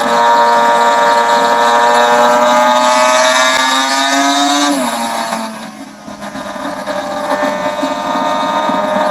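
Yamaha RD500LC's liquid-cooled V4 two-stroke engine running hard under way, its pitch climbing slowly for about five seconds. It then drops sharply and briefly quietens before running on at a lower, steady pitch.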